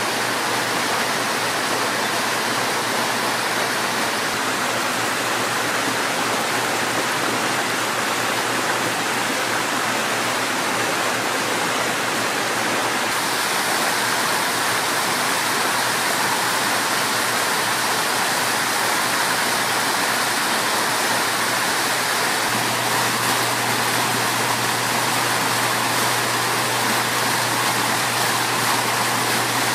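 Water splashing steadily in landscape water features: a small cascade spills over stacked stone into a shallow pool, and about three-quarters of the way through, bubbler fountain jets splash into a pool. A steady low hum runs underneath.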